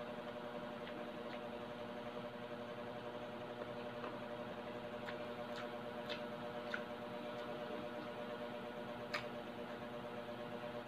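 Chewing crispy fried pork belly: scattered faint crunching clicks at irregular moments, over a steady low background hum.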